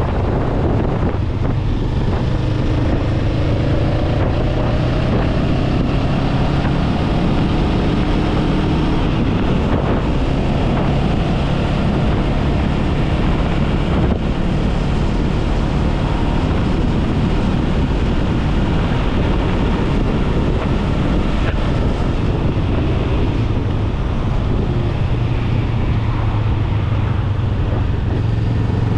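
Honda Rebel 500's parallel-twin engine running at road speed, with wind rushing over the microphone. The engine note rises and falls in the first several seconds, then holds steady.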